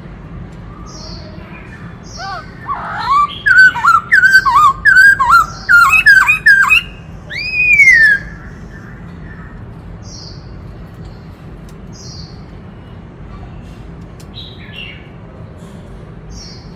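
Black-throated laughingthrush singing a loud phrase of rich whistled notes that swoop up and down, mixed with harsh notes, ending in one long falling whistle. Before and after it come faint short high chirps every second or two.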